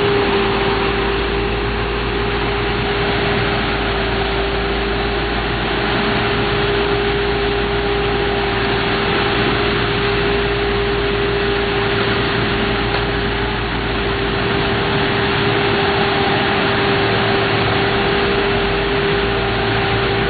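Diesel engines of asphalt paving equipment running steadily, with a constant whine held at one pitch over the engine noise.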